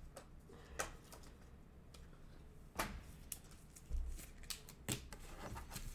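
Trading cards being handled and sorted: a quiet stretch of scattered light clicks and taps as cards are flipped, stacked and slid into sleeves.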